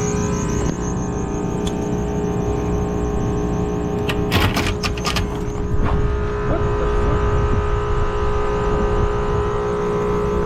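Rooftop air-conditioning equipment running: a steady machine hum at constant pitch. A quick cluster of clicks and rattles comes about four to five and a half seconds in.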